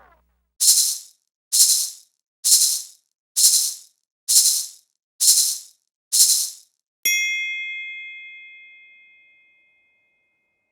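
A rattle or maraca-style shaker shaken seven times, about one shake a second, followed by a single bell-like ding that rings out and fades slowly.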